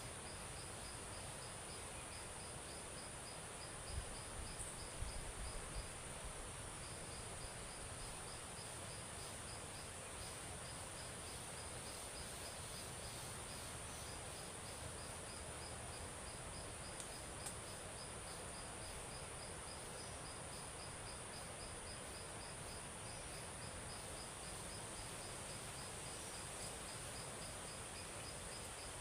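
Insects, crickets among them: a steady high-pitched buzz with an even chirping pulse about three times a second. A few soft low bumps come about four to six seconds in.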